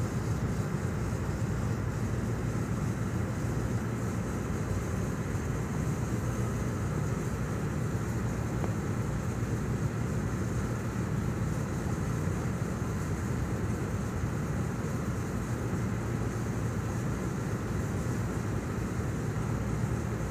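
Steady low rumble of a cargo ship's engine and machinery, with a faint even hiss above it.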